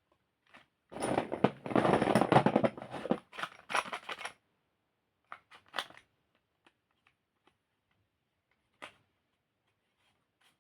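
Chalk crumbling: a dense crackling crunch for about two seconds starting about a second in, then a shorter burst. After that come scattered faint clicks and ticks of small crumbs.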